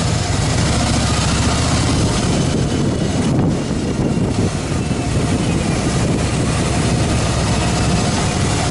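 Harley-Davidson Fat Boy Lo's V-twin engine running steadily under way, with a steady rush of wind noise over the microphone.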